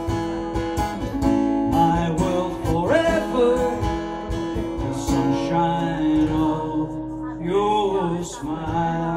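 Acoustic guitar strummed and picked through the closing bars of a slow ballad, with a few held, wavering sung notes without words.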